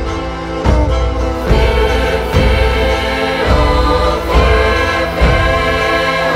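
Background music with choir-like sustained voices over a steady beat.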